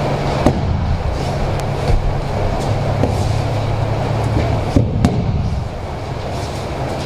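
Steady low hum of room noise with a few short knocks of bare feet and bodies on the dojo mat during an aikido throw; near five seconds in comes a sharper pair of thumps as the thrown partner hits the mat in a breakfall.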